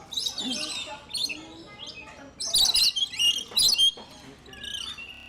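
Rainbow lorikeets chattering with short, shrill, high calls in quick bursts, loudest in a cluster of calls a little past the middle.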